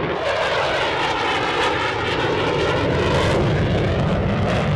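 Fighter jet engine noise, a loud steady rush with a sweeping, phasing tone, as of a jet flying past.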